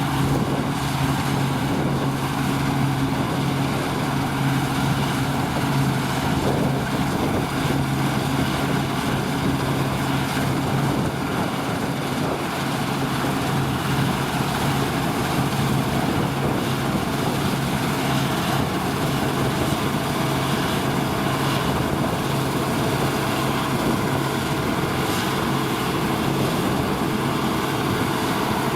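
A New Holland combine harvester running steadily under load while cutting oats: a continuous engine drone with a low hum over the machine's broad mechanical noise. The low hum weakens about halfway through.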